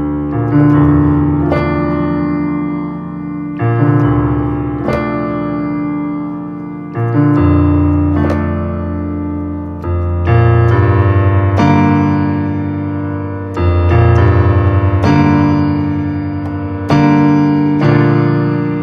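Improvised solo keyboard piece with a piano sound: slow sustained chords struck in pairs about every three seconds over held low bass notes, each chord left to ring and fade.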